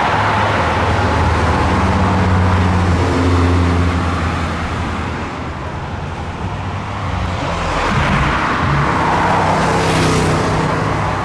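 Car engines running at low revs close by. Near the end another car drives past, its engine note rising and then falling away.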